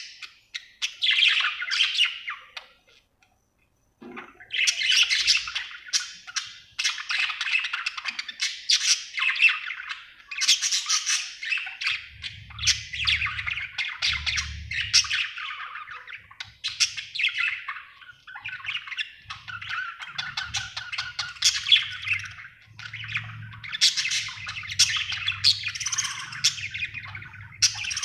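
Budgerigar chirping and chattering in long, quick runs of short chirps, with a brief pause about three seconds in.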